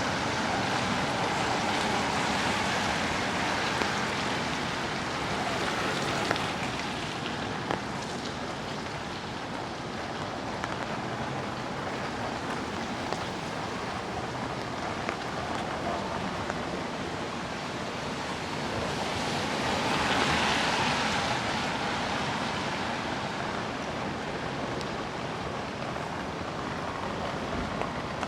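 Steady hiss of rain and wet street noise, swelling louder near the start and again about twenty seconds in.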